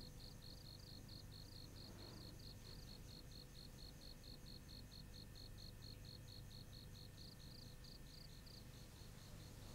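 Faint cricket chirping, an even run of about four or five high chirps a second, over a low hum.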